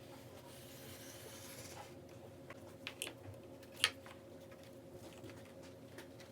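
Light workshop handling sounds: a few small clicks and taps, the sharpest about four seconds in, over a steady low hum.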